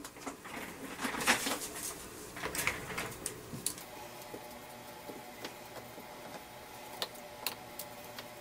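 Hands picking up and handling the plastic housing of a Milwaukee M18 Fuel impact driver: a burst of rustling, scraping and light knocks over the first few seconds, then a few sparse small clicks.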